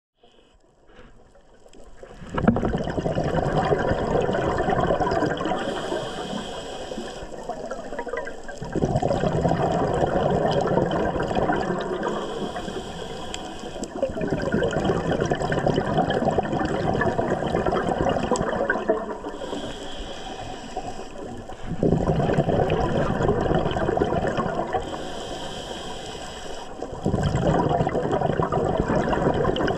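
Scuba diver breathing through a regulator underwater: five loud bursts of exhaled bubbles, each starting suddenly, lasting several seconds and fading, with a fainter hiss between them.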